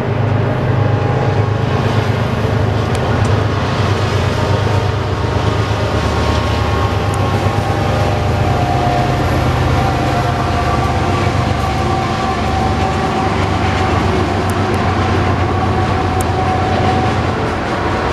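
Loaded coal hopper cars of a BNSF freight train rolling past on the rails: a steady, loud rumble of steel wheels on track.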